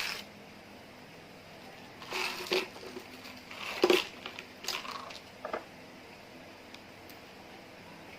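Slime being squished and pressed by hand, making several short squelching, crackling bursts in the first half or so.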